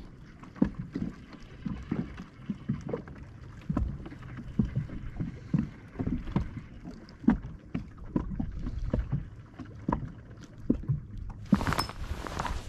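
Small waves lapping and slapping irregularly against the hull of a fishing boat, with a brief rush of noise near the end.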